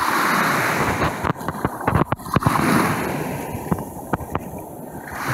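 Small waves washing onto the beach, with wind gusting on the microphone and crackling through it.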